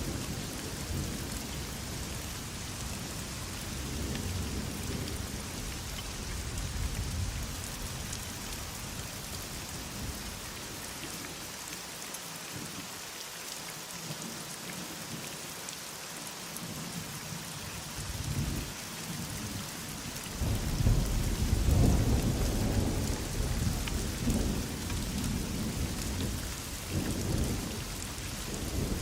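Heavy rain falling in a steady hiss, with thunder rumbling underneath; a long, loud roll of thunder builds about two-thirds of the way through and fades near the end.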